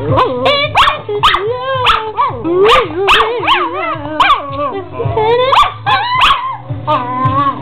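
A chihuahua "singing" along to a recorded song: a quick run of short, wavering howls and yips that swoop up and down in pitch, with the song playing underneath.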